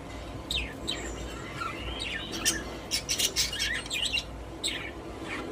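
Pet budgies chirping and warbling, a quick run of sharp, high chirps that is thickest in the middle.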